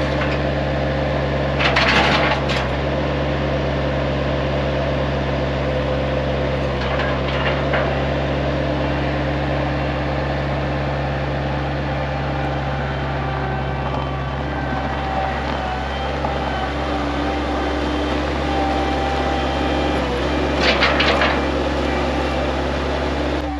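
An engine running steadily, with brief cracking noises about two seconds in and again near the end.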